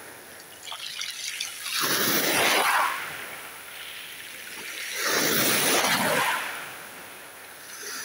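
Small waves on a calm sea washing in, two surges about three seconds apart with a soft hiss of water between them.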